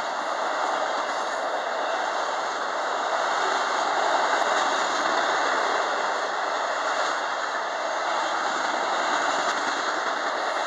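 Enclosed autorack freight cars rolling past, with a steady, even noise of steel wheels running on the rails.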